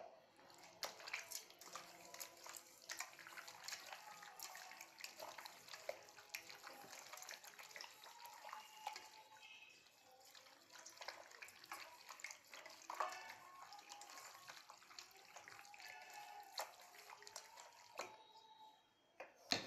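Goat intestines being scrubbed by hand in water with rock salt and turmeric in a steel bowl: faint wet squelching and sloshing with many small irregular clicks.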